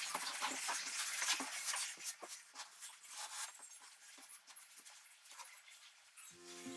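A series of short, scratchy scrapes of grout being rubbed and pressed into tile joints, growing fainter after a few seconds. Acoustic guitar music starts near the end.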